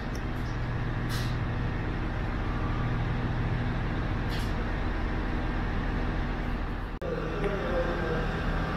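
Diesel railcar's engine idling with a steady low drone. About seven seconds in the sound cuts to a similar idling drone with a wavering mid-pitched tone over it.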